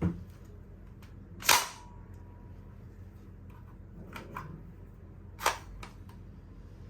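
Nerf Rival Fate XXII-100 blaster being test-fired: two sharp cracks about four seconds apart, with lighter clicks between them and a dull thump at the very start.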